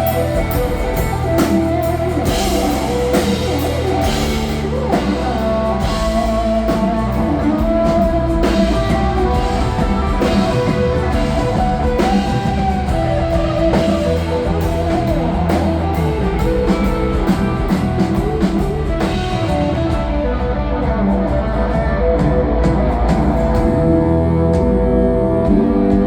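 Live rock band playing a mostly instrumental passage with guitars and a drum kit keeping a steady beat. The cymbals thin out about 20 seconds in.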